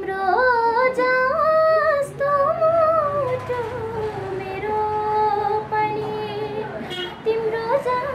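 A woman singing a slow melodic line of long held notes that glide and waver in pitch, over soft instrumental accompaniment.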